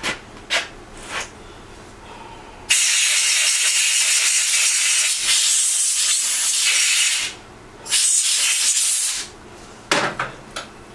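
Compressed air from a blowgun hissing through a Briggs & Stratton black plastic carburetor to blow it dry after carb cleaner. One long blast of about four seconds, then a second, shorter blast of about a second, with a few light handling clicks before and after.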